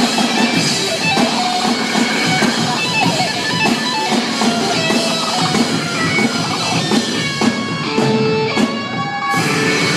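Live rock band playing, with electric guitar over drums.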